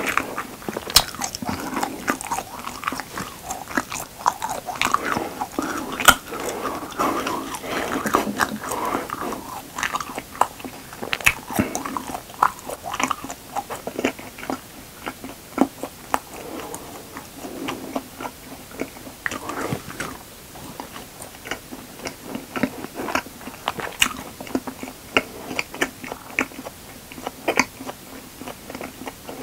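Close-up chewing of a mouthful of honeycomb, with many irregular wet mouth clicks and smacks.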